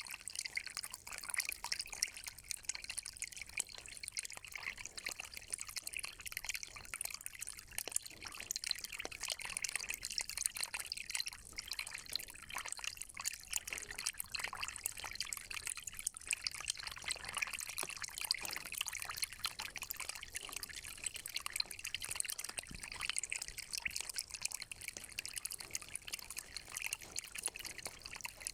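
Spring water trickling and bubbling, a steady patter of many small splashes and drips.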